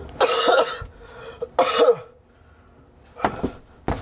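A man coughing hard twice in the first two seconds as he comes to, rough and hoarse, then softer short breaths and a sharp click near the end.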